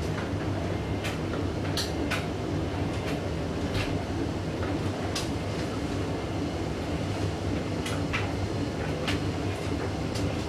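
Hoover DYN9144D3X washing machine drum running with an out-of-balance blanket load as it tries again to reach final spin. It makes a steady rumble with irregular sharp clicks and knocks, about eight in all.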